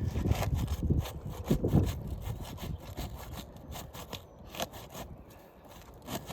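Asphalt shingle being worked loose from its sealant strip by hand: rasping scrapes and crackles, densest in the first two seconds, then sparser and fainter. The shingle is tearing as it unseals.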